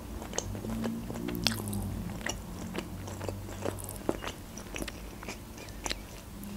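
Close-miked chewing of a mouthful of food, with many small sharp mouth clicks scattered through.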